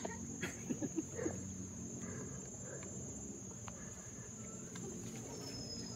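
Steady, high-pitched drone of forest insects, with a few light knocks about half a second to a second and a half in.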